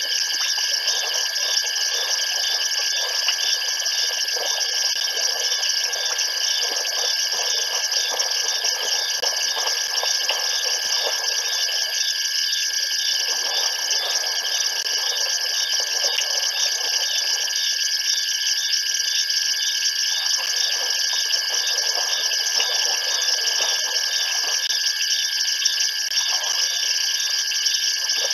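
Steady night chorus of trilling insects, several pitches layered and one of them pulsing rapidly, with a rougher, lower rustling noise that swells and fades every few seconds.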